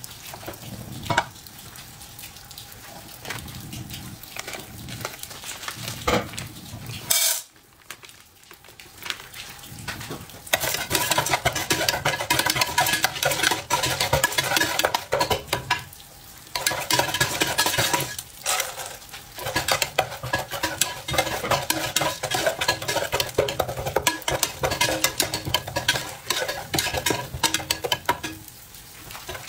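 Corn kernels sizzling in hot oil in an aluminium pressure-cooker pot, stirred with a metal spoon that scrapes and clinks against the pot. The sizzling grows much louder about ten seconds in and keeps going with the stirring.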